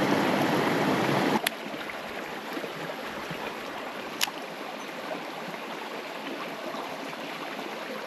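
Mountain stream water running as a steady rushing, which drops noticeably in level about a second and a half in. There are two short clicks, one at that moment and one about four seconds in.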